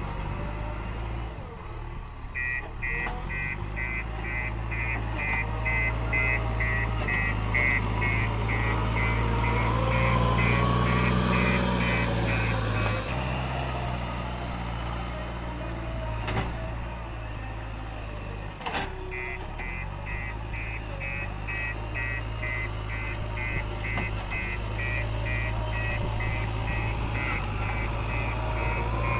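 JCB 3DX backhoe loader's diesel engine running steadily, with its reversing alarm beeping about twice a second. The beeping starts a couple of seconds in, stops for several seconds midway, then starts again; a couple of sharp knocks fall in the pause.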